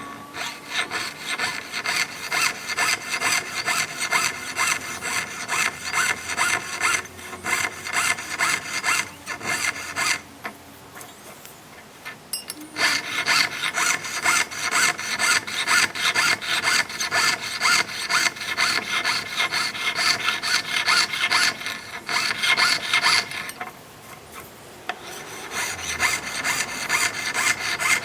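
Jeweller's fretsaw (itonoko) cutting openwork in a 1.5 mm sheet of 18K gold by hand, with rapid, even back-and-forth strokes. The sawing stops twice, for about two seconds some ten seconds in and briefly near the end.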